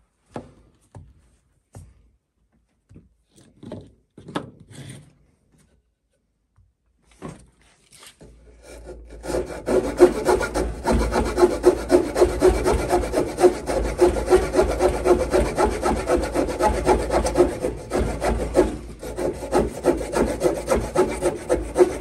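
A few light clicks and knocks of handling, then from about eight seconds in, a Victorinox Swiss Army knife's small saw blade sawing through a round wooden rod in quick, steady back-and-forth strokes.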